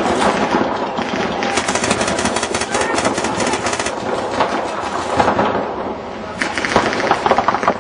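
Reball paintball markers firing in rapid strings, many shots a second, with a lighter spell in the middle before the firing picks up again near the end.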